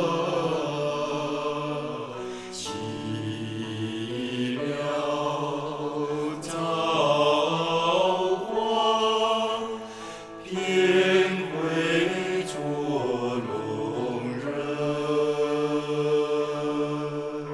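A slow Chinese devotional song, a voice singing over instrumental accompaniment with long held notes.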